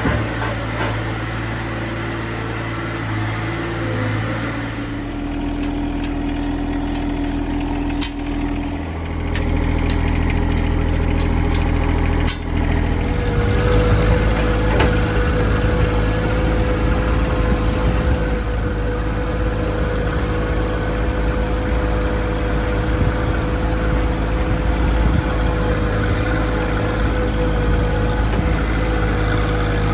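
Tractor engine running steadily, with two sharp metallic knocks about 8 and 12 seconds in. After the second knock the engine gets louder and deeper, with a steady whine over it.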